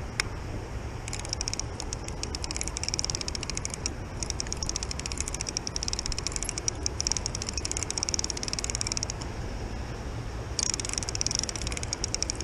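Spinning reel clicking and whirring in rapid ticks as its handle is cranked to reel in a hooked carp, stopping briefly near the end before starting again, over a steady low rumble.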